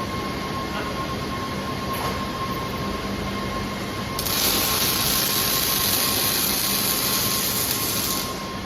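Steady machine hum with a faint whine. About four seconds in, a robotic welding arc strikes and burns with a loud, even hiss for about four seconds, then cuts off.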